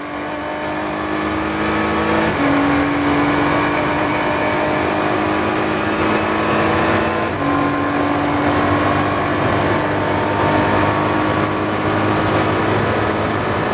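Ginetta G56 GTA race car engine at full throttle, heard from inside the cockpit, pulling steadily with two quick upshifts: one about two seconds in, the other about seven seconds in.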